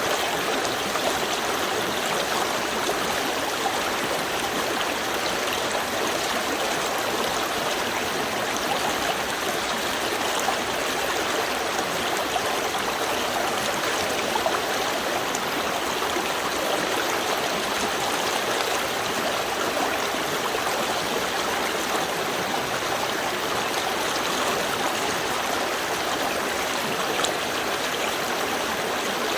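Small river stream flowing steadily over stones, a continuous rushing and babbling of water with small splashes and trickles.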